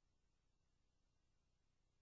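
Near silence: the empty soundtrack of a silent home movie, with only a faint steady hiss and low hum.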